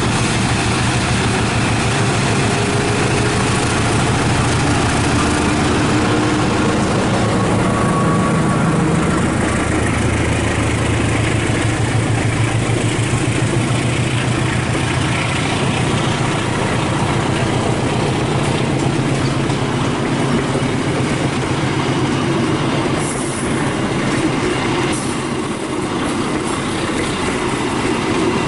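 Diesel train running close by: a steady engine hum and wheels clattering over the rails.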